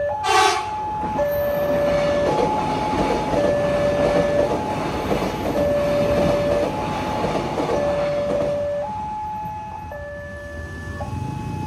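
Level-crossing warning alarm sounding, alternating a high and a low tone about once a second. An electric airport commuter train passes over the crossing with a rumble and rattle from about two seconds in, fading away after about nine seconds. A brief loud blast sounds about half a second in.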